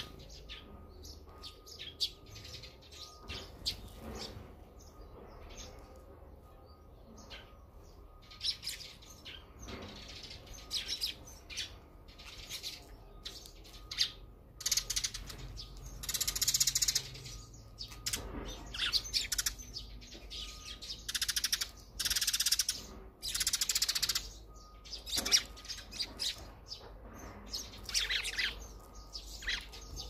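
Eurasian tree sparrows chirping, scattered single calls at first, then dense runs of chirps through the middle, easing back to scattered calls near the end.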